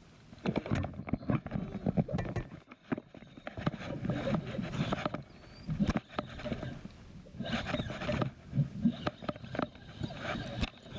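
Irregular knocking, bumping and rustling, with short quieter gaps.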